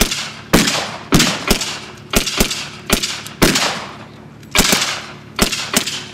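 About a dozen blank shots from WWII-era rifles, fired one at a time at irregular intervals, each sharp crack followed by a short echoing tail.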